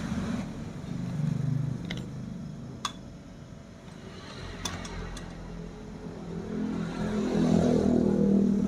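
Handling of an overlock sewing machine head being tilted back upright on a workbench: a few sharp metal clicks and knocks. Under them runs a steady low rumble like an engine, dipping in the middle and swelling near the end.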